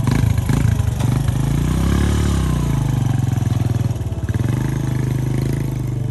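Motorcycle engine running close by: it clatters and rises briefly in pitch about two seconds in, then settles to a steady idle.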